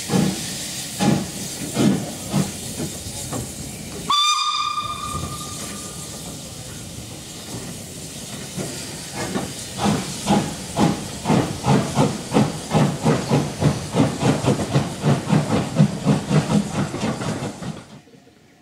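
Steam locomotive blowing one short whistle blast about four seconds in, after a few slow exhaust beats. Later its exhaust chuffs come quickly and evenly, about four a second, over a steady hiss of steam, stopping abruptly near the end.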